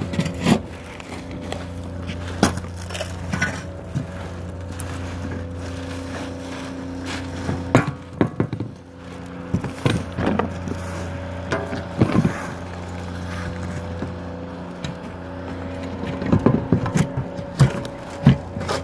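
Flat roofing shovel scraping old roofing off wooden roof decking, giving irregular scrapes and knocks, over a steady machine hum.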